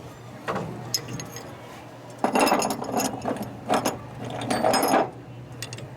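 Metal tools clinking and scraping against a motorcycle brake caliper while its stuck piston is pried back: a couple of sharp clicks, then three rough bursts of metal-on-metal grinding with a ringing edge.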